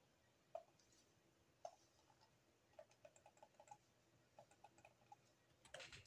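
Faint clicking at a computer: single clicks about half a second and a second and a half in, then two quick runs of several clicks each, with a brief noisier sound at the very end.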